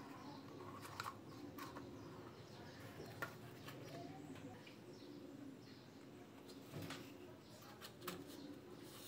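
Faint handling sounds of cardboard and wooden skewers: a handful of light clicks and taps as skewer axles carrying cardboard wheels are slid through small tubes on a cardboard base, sharpest about three seconds in and near the end.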